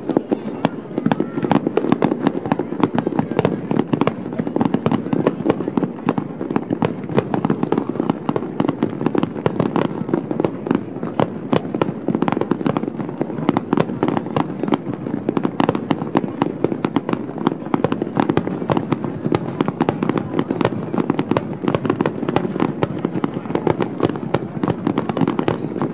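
Fireworks display: aerial shells bursting in a dense, unbroken run of bangs and crackles, many per second.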